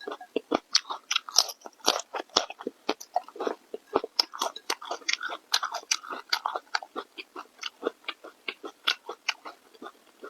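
A person chewing and biting food close to the microphone: rapid, irregular crunching and wet mouth clicks, several a second.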